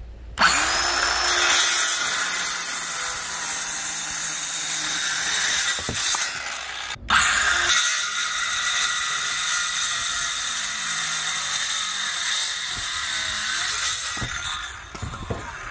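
Handheld propane torch burning with a steady, loud hiss as it scorches the wood of a swarm trap. The hiss breaks off briefly about seven seconds in, then resumes and fades near the end.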